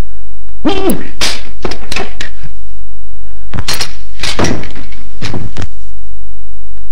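Wooden furniture and stage props being knocked about and toppled: a string of separate thumps and clattering knocks, with a short pitched cry about a second in, over a steady low hum.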